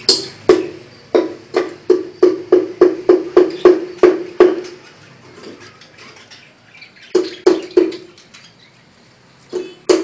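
Percussive music: a single pitched drum-like note struck over and over, about three hits a second, each ringing briefly. The beat drops out about halfway, comes back for a few hits, then pauses again.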